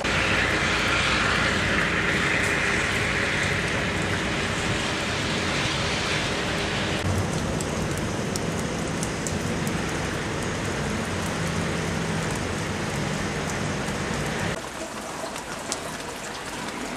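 Steady rain-like hiss and patter of wet snow and slush in a street. Midway a truck engine runs low underneath it, and the whole sound drops abruptly about fourteen seconds in.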